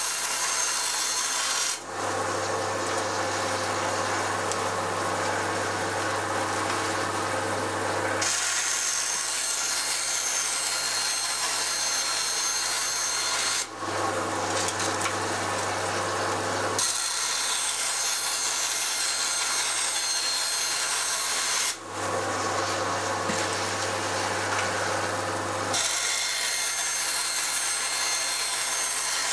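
Small benchtop bandsaw running, its blade cutting through a white sheet fed by hand, with a steady motor hum under the sawing noise. The sound shifts abruptly several times as the cut changes.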